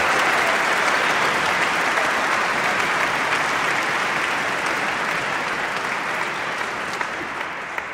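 Crowd applauding, the clapping dense and even and slowly dying away.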